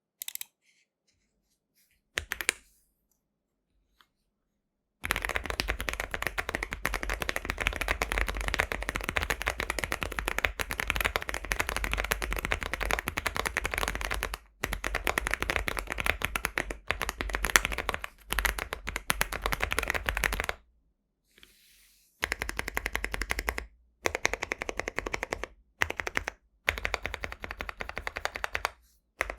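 Mechanical keyboard being typed on fast: nearly quiet for the first few seconds, then a long unbroken run of rapid keystrokes, then shorter runs with brief pauses between them.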